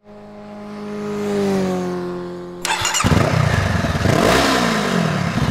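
Motorcycle engine sound effect: a droning engine note that grows louder and falls slightly in pitch, then, a little under three seconds in, a sudden loud burst into revving, its pitch swinging up and down over a fast pulsing beat.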